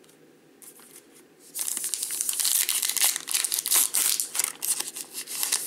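Foil wrapper of a baseball trading-card pack being torn open and crinkled by hand, starting about one and a half seconds in.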